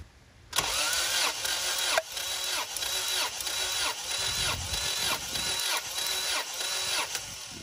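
Honda H22 four-cylinder engine cranking on its starter motor without firing, throttle held wide open, for a compression test on cylinder three. It gives a rhythmic chug of about three pulses a second, starting about half a second in and cutting off near the end.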